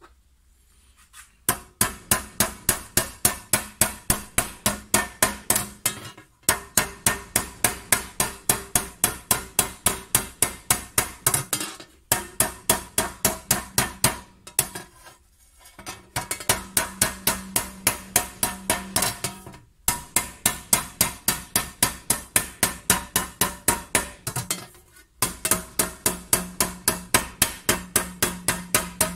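Small hammer striking a copper tray over a wooden stake, raising the metal: quick, even blows about four a second, in runs of several seconds with short pauses between them. Each blow rings with a metallic tone.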